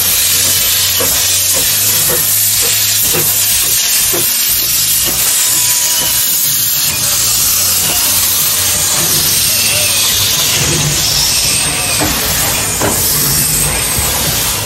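Narrow-gauge steam locomotive venting steam: a loud, steady hiss, with a few irregular knocks in the first few seconds.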